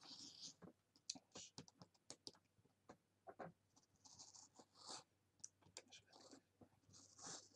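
Faint scratching and scattered sharp clicks of a small rotary cutter's blade cutting fabric along the edge of a plastic circle-cutter template on a cutting mat.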